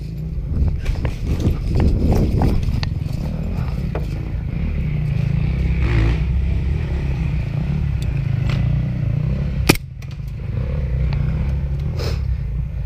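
Low, steady rumble of handling noise on a body-worn camera, with footsteps and rustling on a dry forest floor in the first few seconds. There is one sharp snap a little under ten seconds in.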